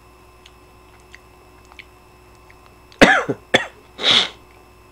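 A man coughing: three short, sharp coughs in quick succession, starting about three seconds in.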